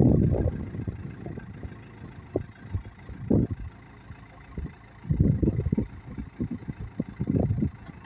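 Terex TX760B backhoe loader's diesel engine running while its backhoe boom and dipper are raised. Irregular loud low rumbling gusts, wind buffeting the microphone, come and go over it, heaviest near the start and in the last few seconds.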